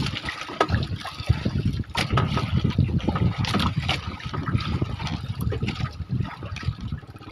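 Outrigger boat under way through choppy sea: water splashing and rushing along the hull and bamboo outrigger, in uneven bursts.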